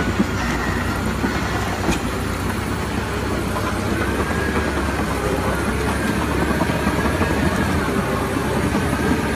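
Heavy vehicle running steadily with a low rumble, and a couple of sharp clanks in the first two seconds.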